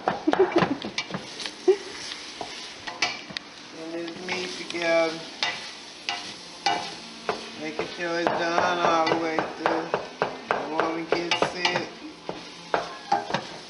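A spoon stirring and scraping ground beef in a stainless steel pot on the stove, with repeated clinks of the spoon against the metal over the sizzle of the frying meat.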